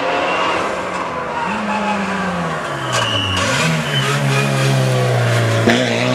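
Mitsubishi Lancer Evolution rally car's turbocharged four-cylinder engine revving hard, its pitch climbing and dropping through gear changes and braking for a hairpin. Near the end there is a sharp crack, and then the engine pitch rises again as it accelerates out.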